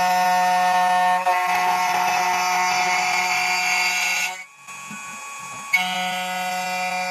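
2M2 Tank 2 Pro CNC key cutting machine running its cutter spindle with a steady whine. About a second in, a rougher hiss joins as the cutter works the HYN14 key blank. Near the middle the spindle stops for about a second, then starts again with a click.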